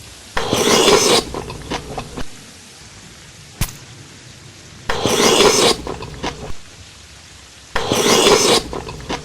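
Close-miked eating of crunchy food: three loud crunching bites, each followed by a few smaller chewing crunches, with a single sharp click between the first two.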